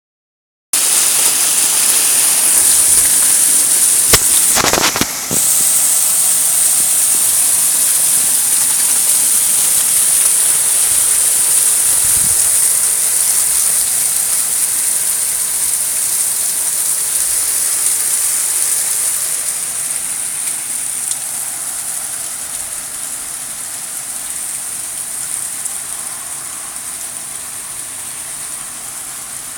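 Heavy rain pelting down hard in a steady, dense hiss, with one sharp knock about four seconds in. The downpour gradually eases from about twenty seconds in.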